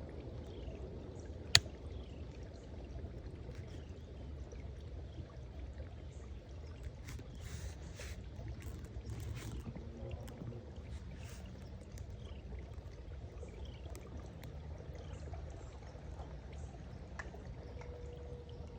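Steady low outdoor swamp ambience with faint, repeated short falling bird chirps. One single sharp crack about a second and a half in.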